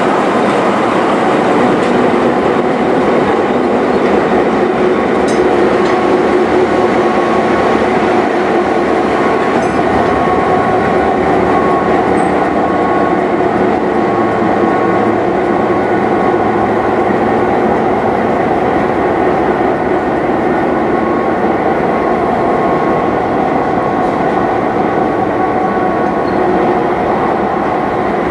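Diesel-electric locomotives 4716 and 4204 running steadily as they haul the train slowly past the platform. A loud, even engine drone with steady tones runs throughout, with faint rumble and clatter from the wheels on the rails.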